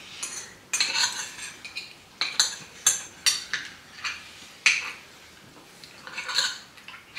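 Cutlery clinking and scraping against plates during a meal: a string of irregular sharp clinks and short scrapes.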